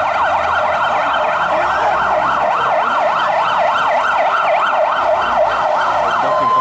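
Fire engine's electronic siren sounding a fast yelp, its pitch sweeping up and down about three times a second. Near the end it switches to a steady tone.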